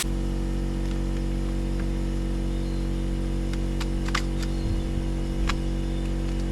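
A machine running steadily at one constant pitch, with a few light clicks and taps over it.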